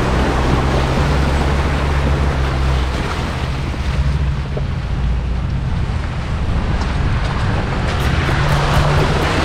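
2018 Jeep JL Wrangler driving along a dirt off-road trail: a steady low rumble of engine and tyres under a wash of wind noise.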